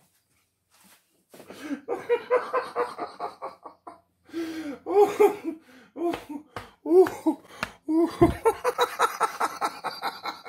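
A man laughing heartily in repeated bursts, starting about a second in and broken by a few short pauses.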